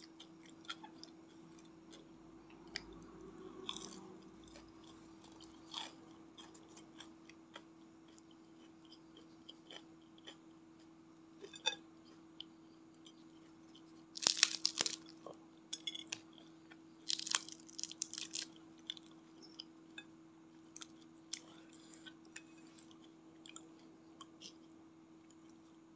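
Close-up eating of crispy fried snacks (gorengan): soft chewing with small mouth clicks, broken by loud crunchy bites about 14 and 17 seconds in. A faint steady low hum runs underneath.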